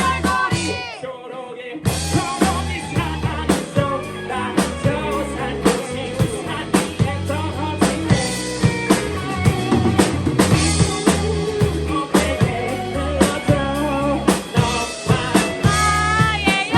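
A rock band playing with drum kit, bass and vocals, with a sung melody at the start and again near the end. About a second in, the band drops out briefly, then the full band comes back in.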